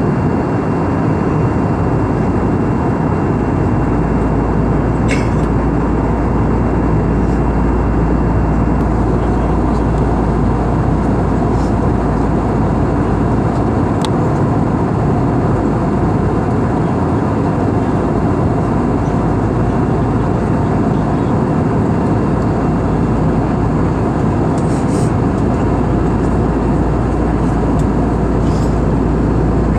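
Steady, loud vehicle noise: a constant rush with a low engine hum beneath, unchanging throughout, with a few faint clicks.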